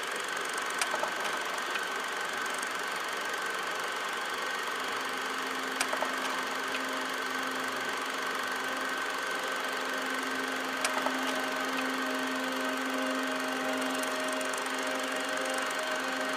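A steady droning hum with hiss and a few held tones, broken by a few short clicks, some of them in pairs, about every five seconds.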